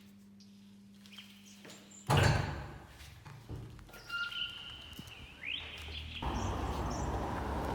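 A loud thud about two seconds in, followed by short high-pitched tones and a rising whistle-like glide, then a steady outdoor background noise from about six seconds on.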